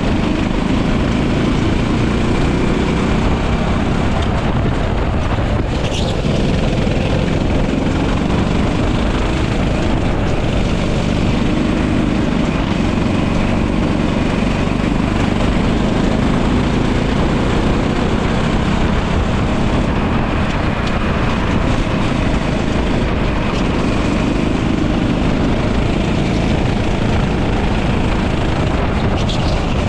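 Racing go-kart engine running hard at speed, its pitch drifting up and down with the throttle, under a steady rush of noise.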